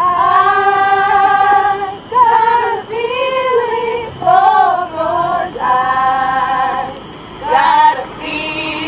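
Female voices singing a slow melody in long held notes, each one to two seconds long.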